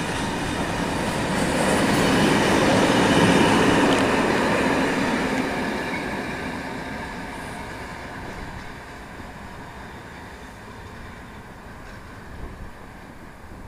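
The box wagons of a stone freight train running past on the rails, a dense rolling wheel-on-rail noise. It grows louder for the first few seconds, then fades steadily as the end of the train draws away.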